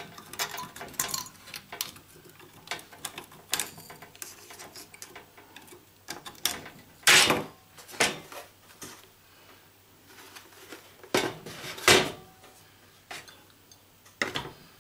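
Handling clatter: scattered metal clinks and knocks as a heavy power transformer and a digital postal scale are moved about and set down on a steel chassis. The loudest knocks come about seven, eight and twelve seconds in.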